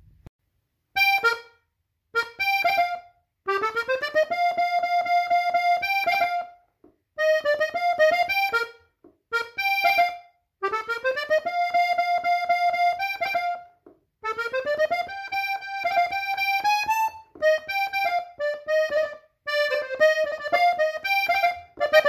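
Hohner diatonic button accordion in F played solo, the melody of a norteño song in B-flat at normal tempo. It goes in short phrases, quick climbing runs into long held notes, with brief silent gaps between them.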